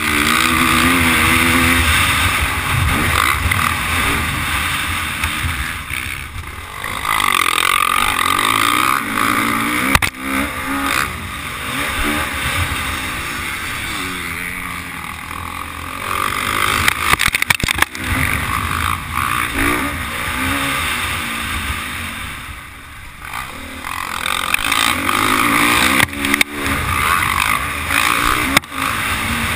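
Dirt bike engine under hard throttle on a motocross track, rising and falling in pitch as the rider shifts and rolls on and off the gas, easing off twice, with wind rushing over the helmet camera's microphone and occasional knocks from bumps.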